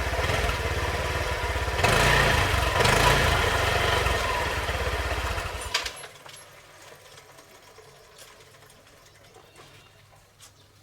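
Honda RSX 150cc motorcycle engine running, louder for a moment about two seconds in, then cut off abruptly about six seconds in. A few faint clicks follow in the quiet.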